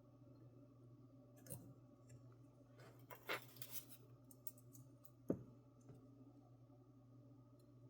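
Faint handling sounds of small hand tools: a few soft clicks and brief scrapes, with one sharper click about five seconds in, over a low steady hum.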